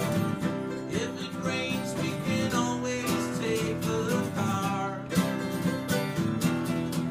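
Acoustic guitar strummed in a steady rhythm, with a mandolin picking a melody over it: live acoustic country/bluegrass playing with no singing.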